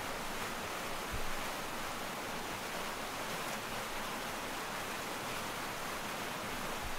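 Fast-flowing stream running high, rushing with a steady, even hiss of water. There is a faint low thump about a second in.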